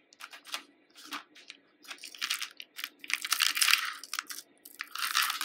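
Handling noise from a pearl necklace being picked up and laid out: scattered clicks of beads knocking together, with bursts of rustling and crinkling about two seconds in, around three to four seconds in and near the end.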